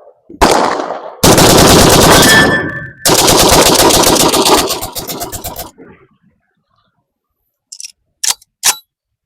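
Draco AK-pattern pistol firing: a single shot, then two long strings of very rapid, evenly spaced shots starting about a second in and stopping about halfway through. Three short, quieter cracks follow near the end.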